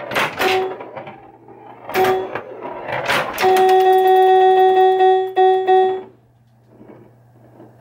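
Bally Fireball Home Edition pinball machine in play: sharp knocks from the ball and playfield coils with pitched electronic game tones, one tone held for about two and a half seconds, before the sound falls away near the end.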